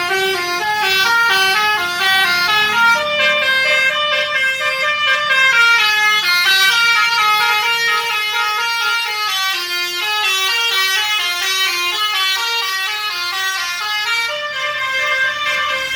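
Indonesian 'telolet' multi-tone musical air horn on a Wulan Jaya bus, playing a quick tune of short stepped notes, about three to four notes a second.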